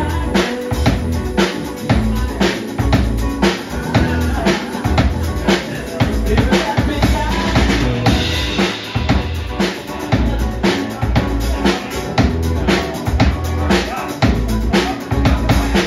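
Live drum kit and electric guitar playing an instrumental passage: a steady beat of drum strikes under the guitar's chords and lines.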